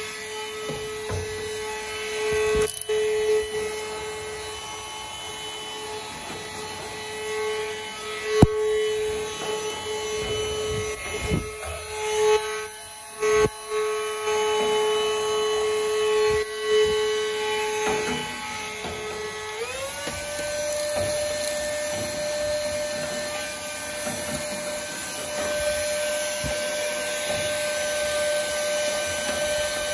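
Vacuum cleaner running with a steady whine while it cleans out the inside of a dryer, its nozzle knocking and scraping now and then. About two-thirds of the way through the whine steps up to a higher pitch and holds there.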